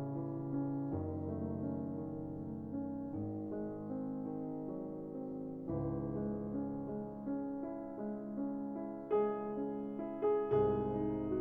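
Background music: gentle piano chords changing about once a second, with a few brighter notes struck near the end.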